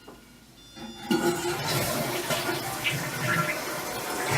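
Toilet flushing, set off by a touchless hand-wave flush sensor: the water rushes in suddenly about a second in and keeps going.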